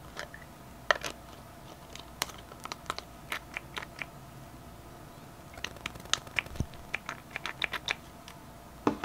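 Small plastic clicks and taps from a skincare pump bottle being handled and its pump pressed. The clicks are scattered at first, then come in a quick run in the second half.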